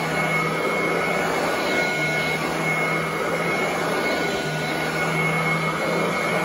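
Royal commercial upright vacuum running steadily while being pushed back and forth over carpet. It makes a steady rushing whine with a high tone, and a low hum that comes and goes every couple of seconds.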